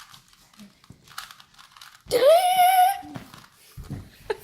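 Faint rustling and small clicks, then about two seconds in a loud, high-pitched cry that rises and holds for about a second before breaking off.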